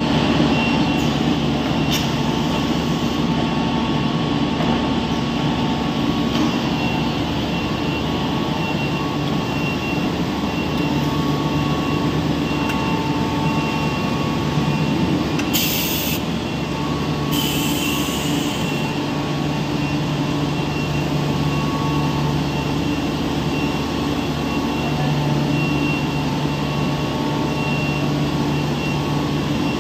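An XHD 1500mm cast stretch film machine running: a loud, steady mechanical drone with several held hums. Two short high hisses come just past halfway.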